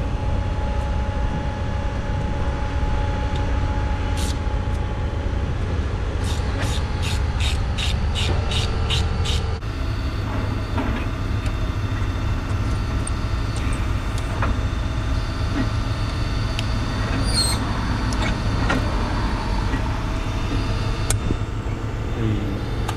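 Steady low rumble, with hand-tool work on the intake piping and hose clamps: a run of about ten evenly spaced clicks, about three a second, near the middle, and scattered light knocks later.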